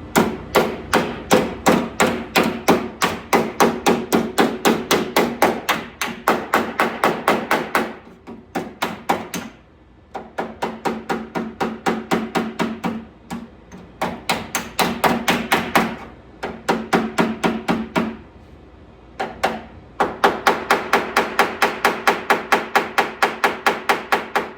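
Body hammer striking sheet steel against a dolly, folding (hemming) the edge of a car door skin over: quick ringing metal strikes, about four a second, in several runs with short pauses between them.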